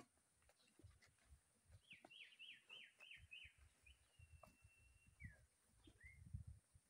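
A faint bird call: a quick run of about six short falling notes, then a held whistle and two more short falling notes. Soft low footfalls go on underneath.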